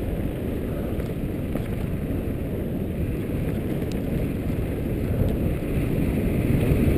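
Wind rush on the microphone and tyre rumble from a Giant Glory downhill mountain bike rolling fast over a dirt and bark-strewn track, heard through a helmet-mounted GoPro, with a few sharp clicks of the bike rattling.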